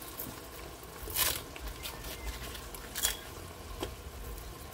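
Paper rustling and crinkling in a few short bursts as burger patties are peeled from their paper sheets and set into a hot pan of onions, which sizzles steadily underneath.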